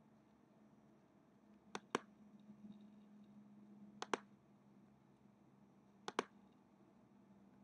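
Three computer mouse-button clicks about two seconds apart, each heard as a quick double tick of press and release, over a faint steady hum.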